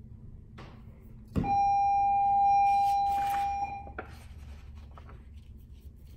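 One long electronic beep: a steady mid-pitched tone that starts with a click about a second and a half in, holds for about two and a half seconds and then cuts off. A few light taps come before and after it.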